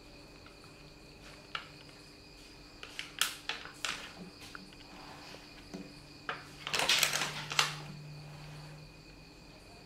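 Crickets chirping steadily in the background. Over them come a few sharp clicks and, about seven seconds in, a louder crackly rustle of things being handled on a table.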